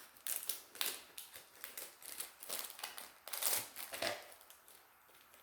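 Small sewing accessories and their plastic packaging being handled: a run of light clicks, taps and crinkles, dying away about four seconds in.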